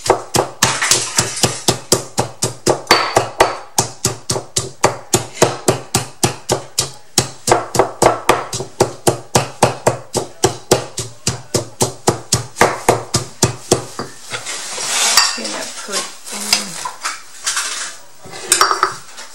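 Stone pestle pounding chillies and garlic in a stone mortar for a Thai chili sauce: steady knocks about four a second. The pounding stops about two-thirds of the way through, giving way to scattered knocks and the clink of a bowl being handled.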